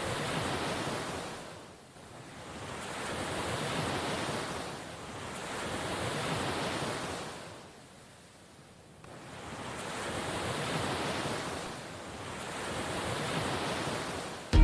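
Rushing, surf-like noise, like ocean waves washing in, swelling and fading in slow swells about every three to four seconds.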